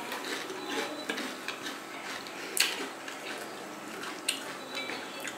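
Fuchka (panipuri) being eaten: crisp hollow puri shells cracked open with the fingers and chewed, with light clinks of spoons and glass bowls. It comes as scattered small crisp clicks and crunches, the sharpest about two and a half seconds in.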